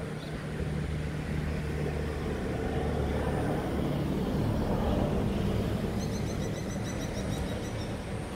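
A low, steady engine hum that swells and then eases off, like a motor vehicle passing. Near the end comes a run of quick, high chirps.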